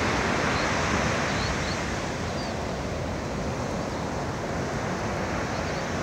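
Steady rush of ocean surf breaking on a sandy beach, mixed with wind on the microphone, with a few faint high chirps.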